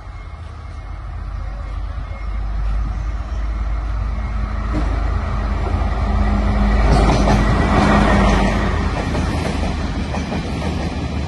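Class S14A diesel-electric multiple unit approaching and passing close by. Its engine hum grows louder and peaks as the power car goes past about seven to eight seconds in. The carriages' wheels then keep running steadily on the rails.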